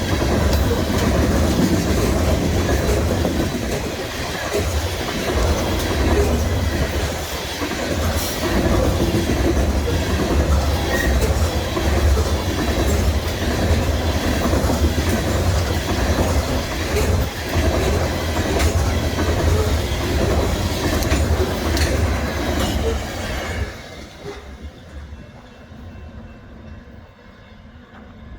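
Freight train cars rolling past close by: a steady heavy rumble with wheels clicking over the rail joints. Near the end the train noise drops off suddenly, leaving a quieter background.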